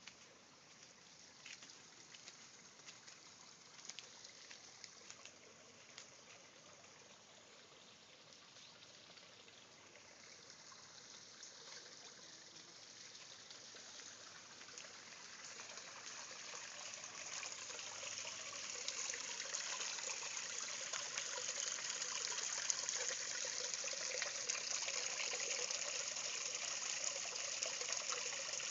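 Water trickling and splashing in a rock-edged garden goldfish pond. It is faint at first, grows steadily louder from about ten seconds in, and holds loud through the last ten seconds.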